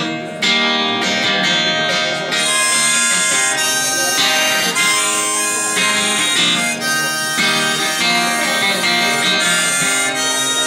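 Instrumental break of a live folk-rock song: a harmonica plays a lead melody of held notes over strummed acoustic guitar.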